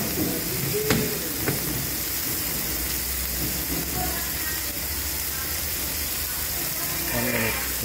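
Pieces of white fish searing in hot oil in a non-stick frying pan: a steady sizzle, with a couple of light clicks about a second in.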